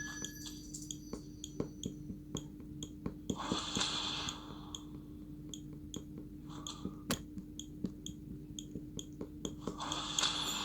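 A steady low hum with many light, irregular clicks and two brief rustling bursts, like a small motor-driven mechanism running.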